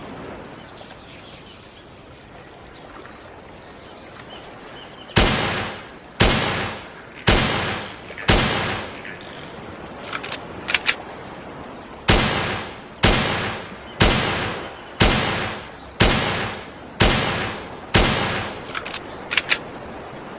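Desert Eagle pistol firing single shots at a steady pace of about one per second, each with a short echoing tail. Four shots come after a quiet start, then a few light metallic clicks, then seven more shots and a few more clicks near the end.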